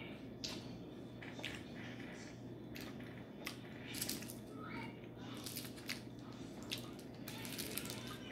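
Close-up eating sounds: wet mouth smacks and clicks as French fries are chewed and fingers licked, with the crinkle of fast-food wrapper paper being handled.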